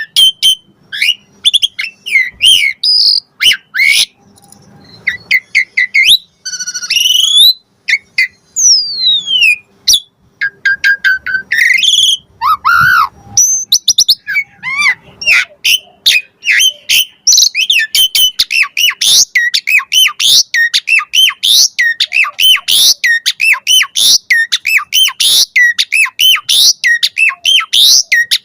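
Asian pied starling (jalak suren) singing loudly, a varied string of whistles, gliding notes and harsh chirps, breaking near the middle into a fast, continuous run of sharp repeated chirps.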